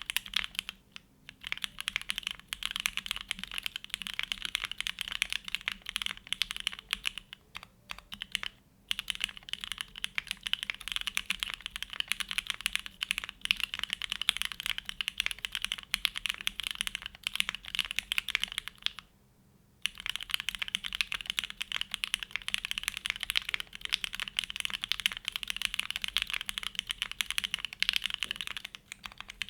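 Fast, continuous typing on a Neo65 mechanical keyboard built plateless with case foam, fitted with hand-lubed Gateron Oil King linear switches and GMK Grand Prix keycaps. The keystrokes form a dense run of sharp clicks, with brief breaks about a second in and near nine seconds and a longer pause around nineteen seconds.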